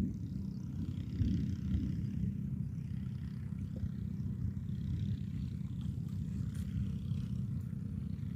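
Wind buffeting the microphone, a low fluttering rumble.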